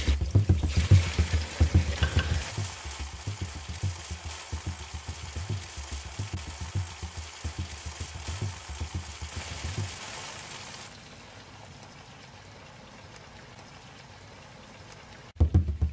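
Chicken pieces sizzling as they fry in a nonstick pan, stirred with a wooden spatula, with dull thuds in the first couple of seconds. The sizzle cuts off about two-thirds of the way through, leaving a faint steady hiss.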